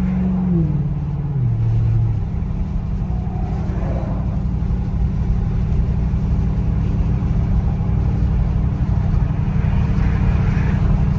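Audi S8's twin-turbo V8 with catless downpipes cruising quietly, heard from inside the cabin: the revs fall over the first couple of seconds, then settle into a steady low hum under road noise, with no exhaust drone.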